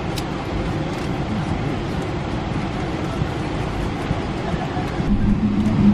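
Steady airliner cabin noise, an even rushing hum of air and machinery. A steady low hum sets in near the end.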